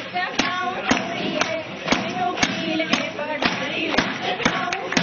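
A group of women singing Punjabi boliyan for gidha, over sharp rhythmic beats about twice a second from clapping and hand percussion.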